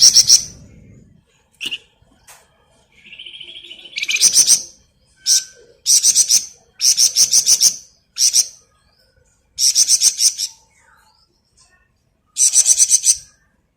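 A flamboyan songbird singing in rapid, tightly packed trills (the 'ngebren' style that keepers prize), about seven short high rattling bursts with pauses between them. A brief buzzy note comes between the early phrases.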